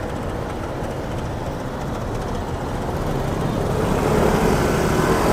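City street traffic: a steady rumble of passing vehicles that grows louder through the second half as traffic comes closer.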